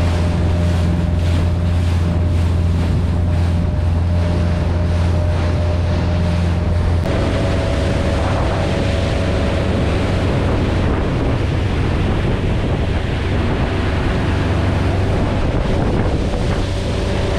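Small fishing boat's motor running steadily under heavy wind buffeting on the microphone and the wash of sea water. About seven seconds in the engine note changes and its low hum eases.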